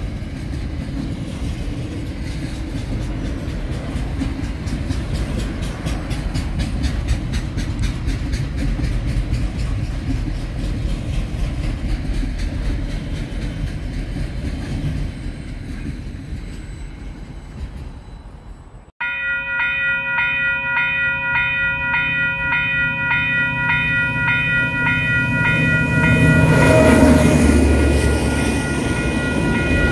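Container wagons of a freight train rolling past with a steady rumble and regular wheel clicks, fading away as the last wagon passes. After an abrupt cut, KiwiRail DL-class diesel-electric locomotives pass close by, their engine loudest near the end, while a ringing tone of several notes pulses about twice a second for several seconds.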